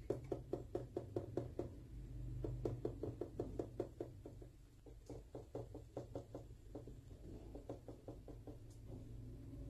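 Silicone spatula patting and spreading thick cake batter in a metal loaf pan: quick soft knocks about five a second, a strong run in the first four seconds, then lighter, more scattered pats.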